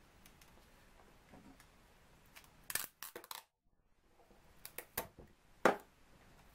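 Paper being creased and handled, a quick cluster of crinkles and clicks, breaking off into dead silence for about half a second. Then a few light taps and a single knock as a clear plastic tape dispenser is set down on the table.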